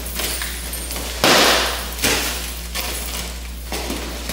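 A taped cardboard box being torn open by hand: several short ripping bursts of cardboard and packing tape, the loudest about a second in.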